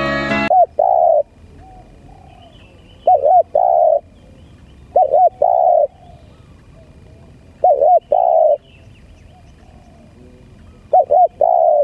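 Spotted dove cooing: five phrases about two and a half seconds apart, each two quick short notes followed by a longer, lower coo, in the 'lambung kuk' song type that dove keepers prize. Music cuts off sharply just before the first phrase.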